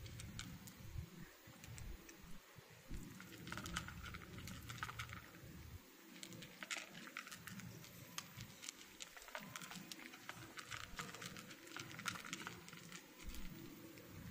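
Two cats chewing dry kibble: a steady run of small, irregular crunches and clicks, with a low rumble underneath.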